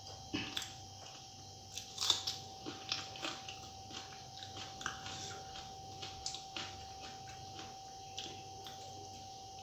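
Close-up eating sounds: chewing with irregular wet clicks and smacks of the mouth, over a steady faint hum.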